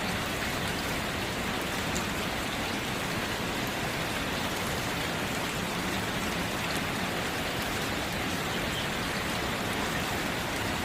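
Steady rain falling, an even hiss with a few fainter drop ticks.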